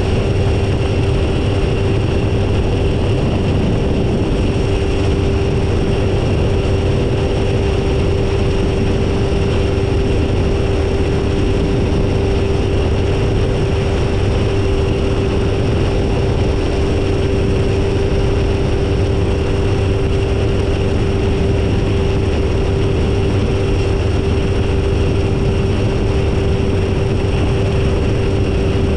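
Phantom ultralight's two-stroke engine and propeller running steadily in cruise flight, heard from the tail with air rushing past. There is a constant droning tone with no change in pitch.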